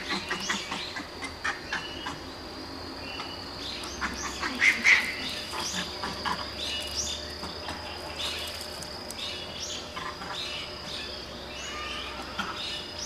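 Animal calls: a string of short, high chirps that rise and fall in pitch, with a couple of louder calls about four to five seconds in, over a steady high-pitched whine.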